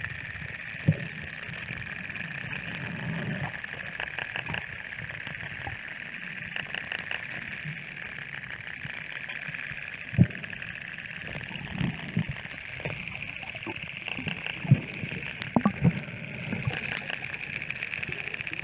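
Dolphin clicks and short buzzing click trains, recorded underwater through a phone in a plastic case, over a steady underwater hiss. Several dull low knocks come through, the loudest about fifteen seconds in.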